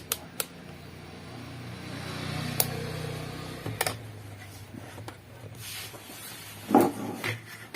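A few sharp clicks from a multimeter and its probes being handled, over a low rumble that swells and then fades through the middle.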